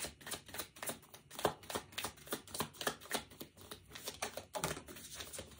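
A tarot deck being shuffled by hand: an irregular run of soft card clicks and flicks, several a second, as the cards slide and tap against each other.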